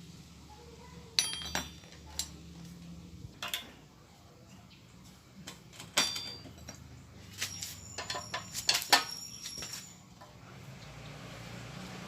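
Metal tools and parts clinking and clanking as they are handled: a scatter of sharp knocks with short metallic ringing, busiest about eight to nine seconds in.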